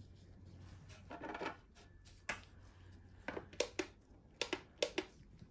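A scatter of light, sharp clicks and taps of small hard objects being handled, about eight in the second half, over a faint steady hum.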